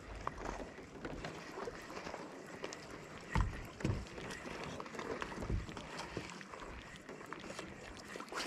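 Steady hiss of wind and water on an anchored fishing boat, with a few dull knocks on the boat, the loudest about three and a half seconds in, another half a second later and one more near the middle.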